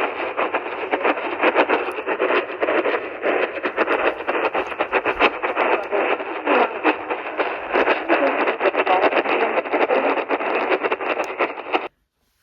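Radio receiver static: dense hiss and crackle from a weak or lost broadcast signal. It cuts off abruptly near the end.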